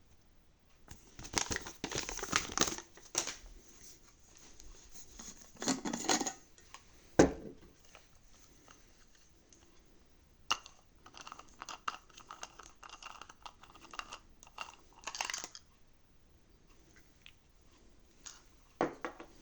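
Packaging being handled and opened: crinkling and tearing in several bouts, with one sharp knock about seven seconds in and a few small clicks.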